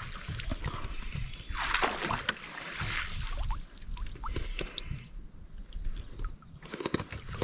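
Water lapping and gurgling against a canoe hull, with small drips and splashes now and then.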